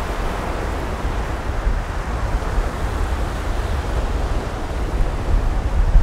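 Small surf waves washing up over a shell-strewn shore, a steady rushing wash, with wind buffeting the microphone as a fluttering low rumble.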